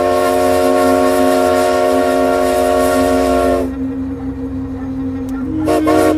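Train horn blowing one long, steady blast, several notes sounding together. It cuts off about three and a half seconds in, leaving a low steady hum.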